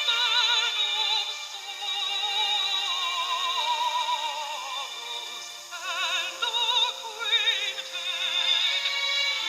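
Background music: a high singing voice with a wide, wobbling vibrato, operatic in style, holding long notes with no bass underneath.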